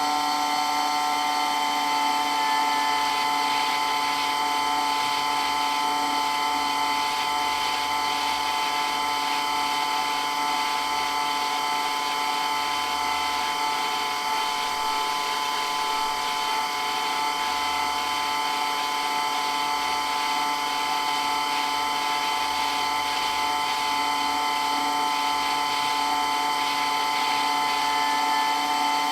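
Water pump for water blasting running continuously, a loud, steady whine made of several fixed tones that holds without change.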